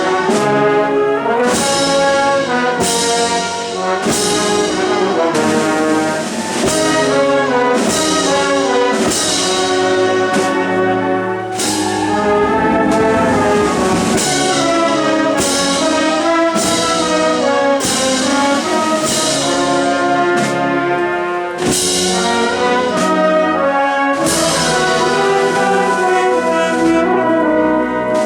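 Spanish processional wind band (banda de música) playing a march, brass carrying the melody over a steady beat of percussion strikes.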